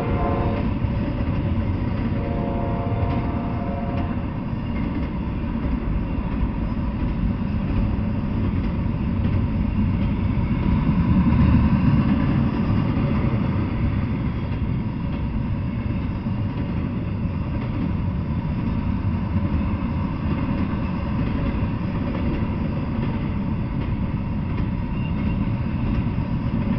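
Freight train rolling past: a steady rumble of steel wheels on the rails that swells a little about halfway through. A few faint steady tones sound in the first few seconds.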